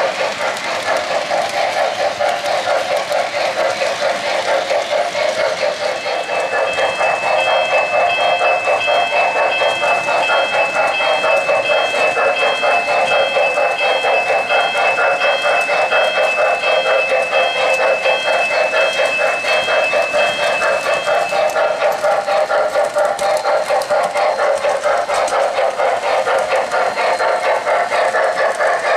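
Lionel O-gauge N&W J-class steam locomotive and loaded coal hoppers running on three-rail track: a steady, fast, even clatter. From about six seconds in to about twenty-two seconds, a high steady ringing tone sounds over it.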